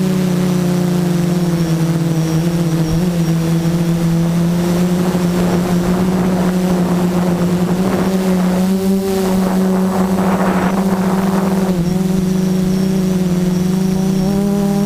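An F330 quadcopter's brushless motors and propellers buzz steadily at one pitch, heard from the camera on board. From about five to twelve seconds in, a rougher rushing noise swells over the buzz, peaking about ten seconds in, as the drone manoeuvres.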